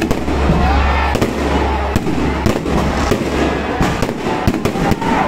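Aerial fireworks bursting in rapid succession: a dense run of sharp bangs and crackles, over a low rumble that stops about three and a half seconds in.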